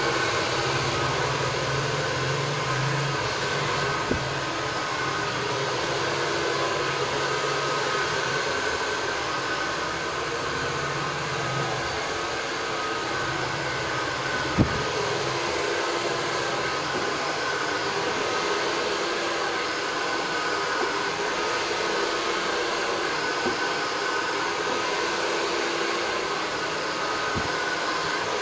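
Handheld hair dryer blowing steadily, with a few brief clicks, the sharpest about halfway through.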